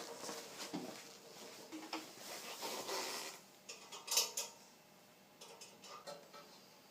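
Metal parts and tools clattering and clinking as they are handled, with one sharp clink about four seconds in, then a few light ticks.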